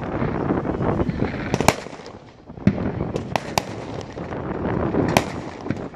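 Fireworks going off: a string of sharp bangs and cracks, about six in all, over a steady rumble of more distant bursts, with a brief lull about two seconds in.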